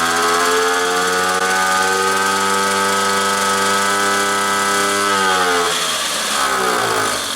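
Motobecane moped's small single-cylinder two-stroke engine running on its first start after restoration, held at high revs and steady for about five seconds, then the revs drop away.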